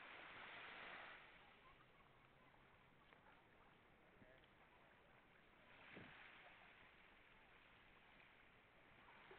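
Near silence: a faint steady hiss, with one brief soft sound about six seconds in.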